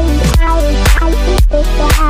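Background music: an electronic dance track with a steady beat, about two beats a second, over a synth melody and bass.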